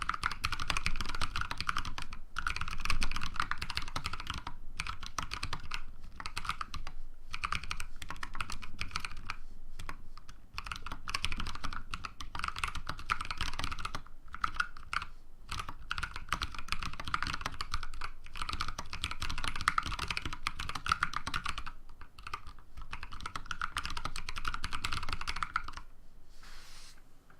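Fast continuous typing on a custom mechanical keyboard with lubed Outemu Ice V2 switches, dark purple stems with 68g springs on the letter keys, giving a dense stream of keystroke clacks with brief pauses between bursts. The typing stops about a second before the end, leaving a faint sound.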